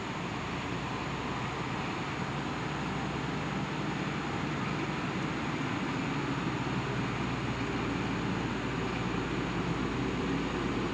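Heavy truck's engine running steadily under load as it slowly approaches, growing slightly louder.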